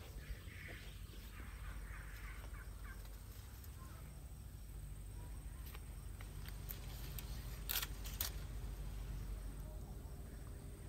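Quiet outdoor ambience: a low steady rumble, faint bird calls in the first few seconds, and two sharp clicks half a second apart about eight seconds in.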